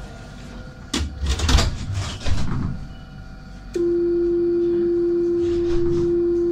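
A stationary Citadis 302 tram, most likely sounding its door-closing warning: one loud steady tone of a single pitch starts about halfway through and lasts about three seconds. Before it, a second or two of clattering, rumbling noise.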